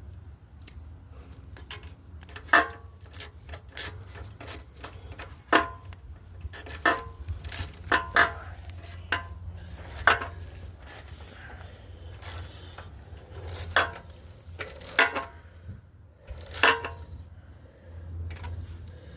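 Irregular clicks, taps and knocks of hand tools and small metal parts being handled while working on a Predator 212 engine's carburetor, over a steady low hum.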